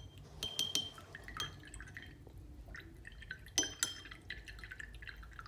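A watercolour brush being rinsed in water, with faint swishing and a few sharp ringing clinks of the brush against its container: two about half a second in, one soon after, and two more past the middle.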